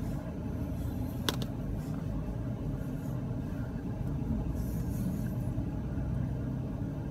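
Steady low car rumble heard inside the car's cabin, with one sharp click about a second in.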